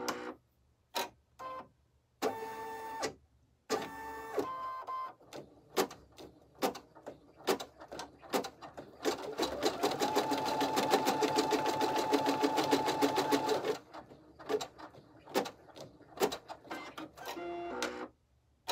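Computerized embroidery machine stitching: stop-start runs of a few stitches and hoop moves. About nine seconds in it breaks into roughly four seconds of fast continuous stitching, its motor tone rising and then holding steady, then it goes back to short bursts.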